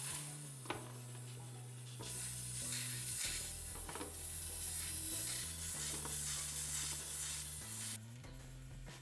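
Petrol fuel injectors spraying cleaner with a steady hiss, louder from about two seconds in until near the end, while being pulsed from a power supply to clean out clogging. Low sustained background music notes run underneath.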